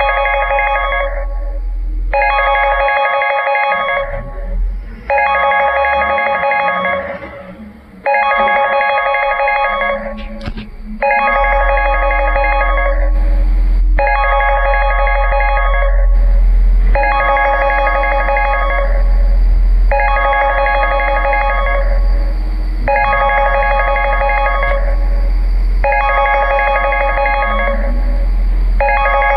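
Electronic phone ringtone: a rapid warbling trill about a second and a half long, repeating every three seconds, over a steady low hum.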